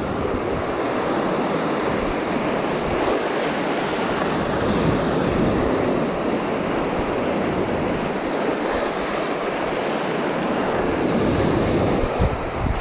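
Small surf breaking and washing up on a beach, with wind buffeting the microphone.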